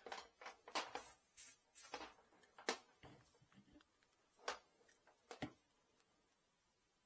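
Scattered small clicks and rustles of hands handling wires and small parts at a workbench, with a few sharper clicks, stopping about six seconds in.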